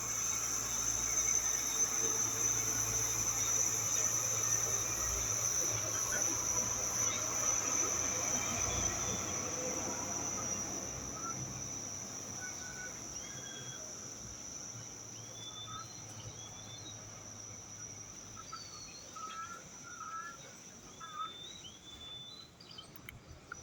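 Insects trilling steadily in one high-pitched band, slowly growing fainter, with short bird chirps scattered through the second half.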